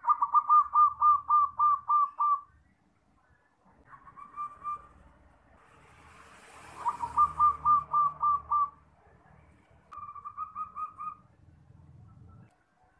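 Zebra dove (perkutut) cooing in rapid runs of soft, evenly spaced notes: four phrases, the first and third the loudest. A faint rushing noise swells in the middle.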